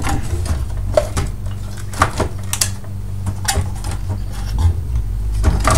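Irregular metallic clicks and rattles as an old oscilloscope's vertical amplifier circuit board is wiggled and tugged against its metal chassis, still held in place and not yet coming free.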